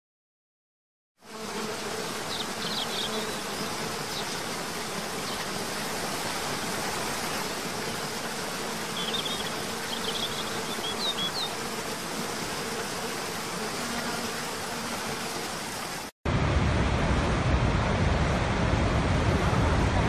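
Rushing water of a cascading waterfall, starting about a second in, with a faint steady buzz and a few short high bird-like chirps. After an abrupt cut near the end, a louder, deeper rush of water pouring over the brink of Niagara's Horseshoe Falls.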